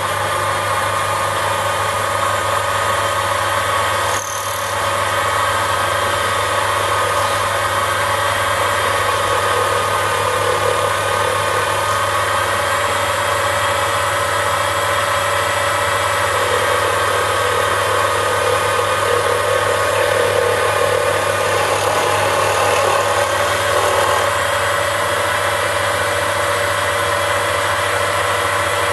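Mini lathe running steadily, a constant motor whine with its gear noise, while a homemade carbide-tipped 6 mm boring bar cuts inside a hard steel tube. The level dips briefly about four seconds in.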